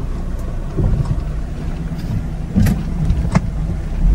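Mitsubishi Xpander driving slowly in low gear, heard from the cabin: a steady low rumble with two sharp clunks from the front suspension about two and a half and three and a third seconds in. The mechanic traces the clunking to play in a front stabilizer (anti-roll bar) link.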